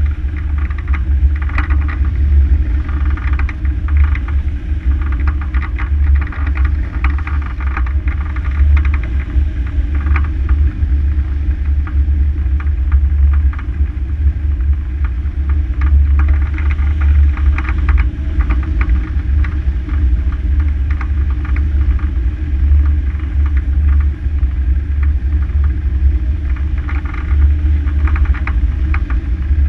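Wind rushing over a hang glider's wing-mounted camera in flight: a steady heavy low rumble with scattered flurries of crackle from gusts hitting the microphone.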